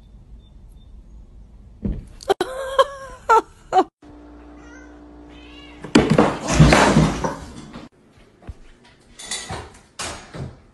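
A cat meowing: pitched calls that bend and break off, about two seconds in. A loud clatter follows for about two seconds.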